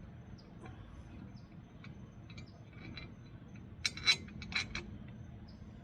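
Light metallic clicks and clinks from a crane hook being handled, with a quick run of sharper clicks about four seconds in.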